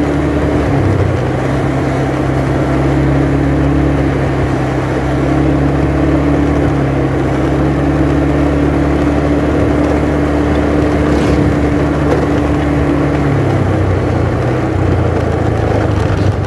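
Motorcycle engine running steadily while riding, heard from the rider's seat over road noise; its pitch rises slightly about a second in and drops about thirteen seconds in as the bike eases off.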